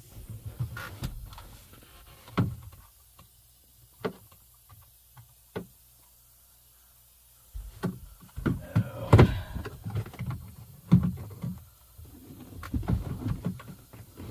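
Handling noises inside a truck cab: scattered knocks and clunks against panels, with a busy stretch of bumping and rustling from about eight to eleven seconds in.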